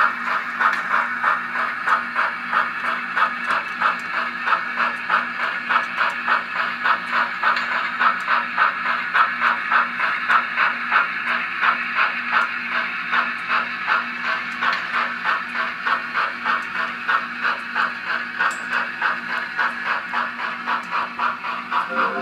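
Soundtraxx Tsunami 2 DCC sound decoder in a Kato N scale FEF steam locomotive playing a steady steam exhaust chuff through the model's small speaker, about two to three chuffs a second.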